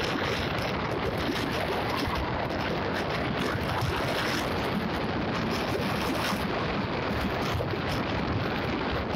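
Steady wind rushing over the microphone of a vehicle moving at road speed, an even rush with no clear engine note.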